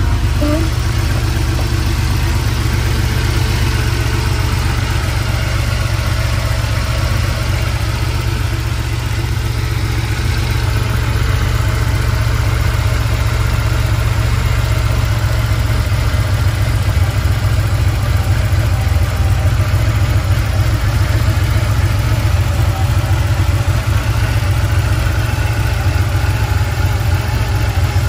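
1986 Porsche 911 Carrera's air-cooled 3.2-litre flat-six idling steadily after a cold start, heard over the open engine lid.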